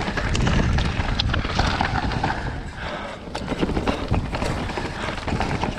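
Commencal Meta Power 29 electric mountain bike descending rough, stony singletrack: tyres rolling over dirt and rocks, with frequent rattles and knocks from the bike and a steady wind rumble on the microphone.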